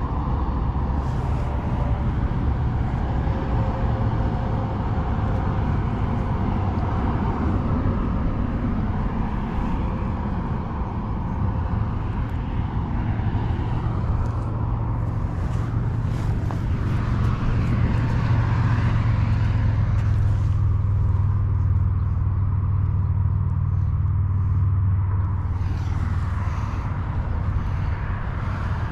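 Steady low rumble of outdoor background noise, growing louder for several seconds in the middle and easing off again near the end.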